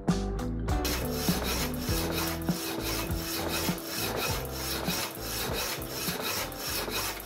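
Small electric power hacksaw cutting a round steel bar, the blade rasping rhythmically on each stroke, starting about a second in.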